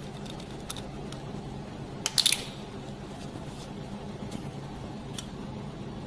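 Plastic centrifuge tube and its screw cap being handled over a glass petri dish: a few faint clicks and a short clatter of quick clicks about two seconds in, over a steady low room hum.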